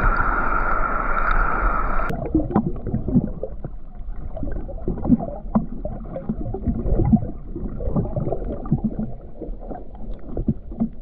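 Whitewater rushing around the surface at first. About two seconds in, an action camera goes under water and the sound turns muffled: bubbling and gurgling water pressed against the camera housing, with many small pops.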